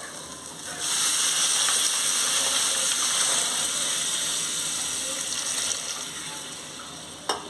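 Water poured into a hot frying pan of oily onion-tomato masala, hissing and sizzling loudly as it hits the hot oil. The hiss starts about a second in and eases off over several seconds as the liquid starts to bubble. A short click near the end.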